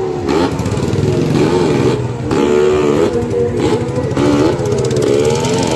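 Two motorcycle engines revving unevenly as the bikes pull away across the floor of a well-of-death pit, their pitch rising and falling with the throttle.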